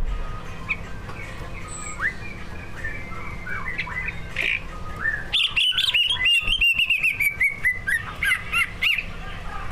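Cucak ijo (green leafbird) singing: scattered chirps and slurred whistles, then a loud, fast run of short notes that slowly falls in pitch for about two and a half seconds, followed by a few more notes. A steady low hum sits under the song.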